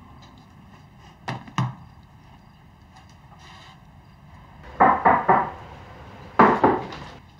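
Knocking on a wooden door: two rounds of about three quick knocks, around five and six and a half seconds in. Two lighter taps come about a second in.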